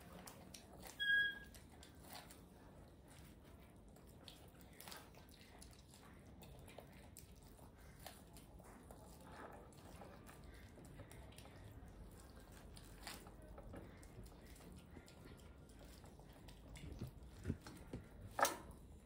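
A baby monkey eating corn: faint, scattered wet chewing clicks, with one short high squeak about a second in and a few sharper clicks near the end.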